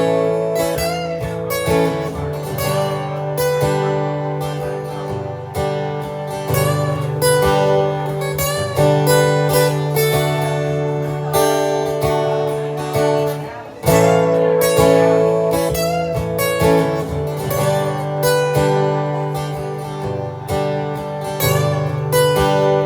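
Acoustic guitar strumming chords with picked notes in an instrumental passage, with a short break in the strumming about 14 seconds in.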